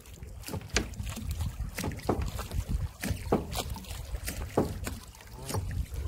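Irregular knocks and clicks in a small rowboat as a fishing net is hauled in, over a low rumble of wind on the microphone.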